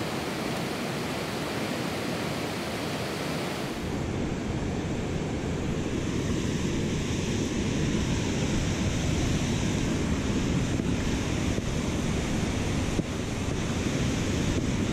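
Water pouring over a low dam spillway: a steady rushing noise with wind buffeting the microphone. About four seconds in it turns deeper and a little louder.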